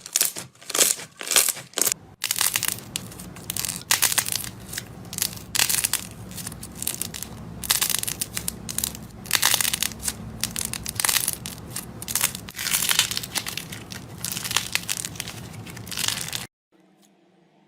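Slime being squeezed and pressed by hand, making crackling, crunching clicks: spaced bursts at first, then denser continuous crunching from about two seconds in. The crunching stops abruptly near the end.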